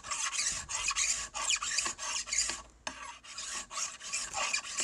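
Flat hand file rasping in quick back-and-forth strokes across the steel side plate of a Browning 1919 receiver, dressing the hot-set rivets flush with the plate. The strokes pause briefly about three seconds in.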